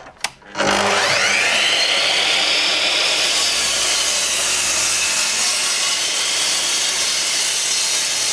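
Bosch sliding mitre saw starting up with a rising whine about a second in, then running steadily as its blade is drawn through an oak glued-laminated panel for an angled cut.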